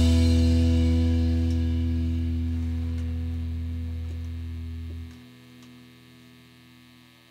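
The final chord of an instrumental rock song ringing out and slowly fading, with a deep, humming bass note under it. The bass note cuts off about five seconds in, leaving faint ringing.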